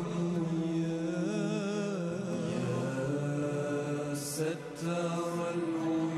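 Chanted vocal music: a single voice drawing out long wavering notes over sustained background tones.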